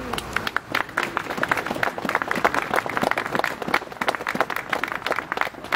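Applause from a small outdoor gathering: many hands clapping in a dense, irregular patter that stops near the end.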